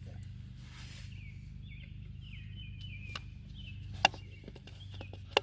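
A few sharp knocks and clicks of handling, the loudest a little past the middle and near the end, over a steady low hum. A bird chirps in the background through the middle.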